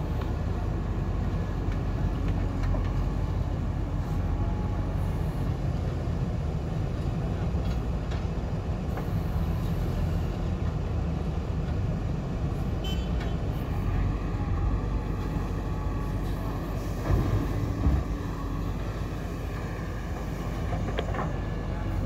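JCB 3DX backhoe loader's diesel engine running steadily under load as the backhoe digs and swings soil, with faint hydraulic whine. A couple of louder knocks about three quarters of the way in.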